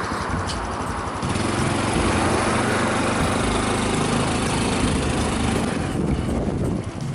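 Honda CT125 Hunter Cub's 125 cc single-cylinder engine running steadily, dropping in level near the end.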